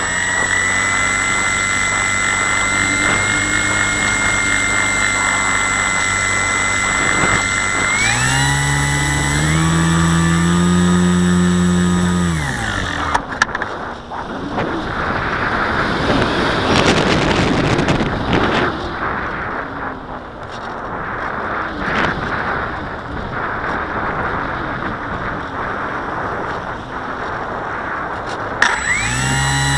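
Parkzone Radian RC glider's electric motor and propeller running with a steady whine, rising in pitch as it throttles up about eight seconds in, then cutting off suddenly. A steady rush of air noise follows while the motor is off, and the motor whine starts again and rises near the end.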